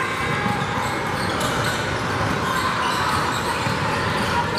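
Basketball game sounds in a large gym: the ball bouncing on the hardwood court and sneakers squeaking over a steady murmur of spectators.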